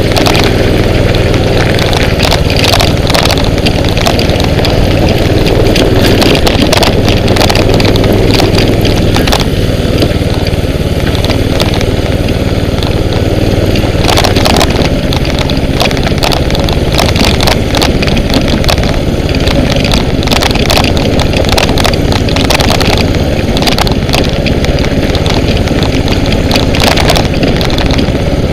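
Mini bike's small engine running as it rides, loud and close on a helmet-mounted microphone, with frequent short knocks and rattles throughout.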